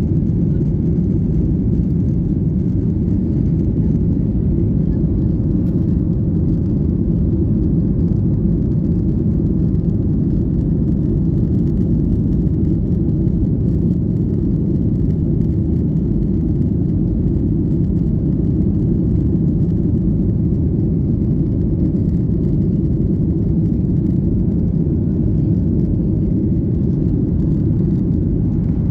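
Steady low roar of a jet airliner in flight, engine and airflow noise heard inside the cabin.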